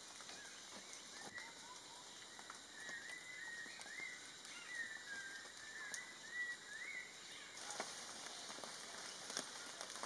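Forest ambience: faint, scattered short bird calls and twittering notes that rise and fall, most frequent in the middle of the stretch, over a steady high hiss.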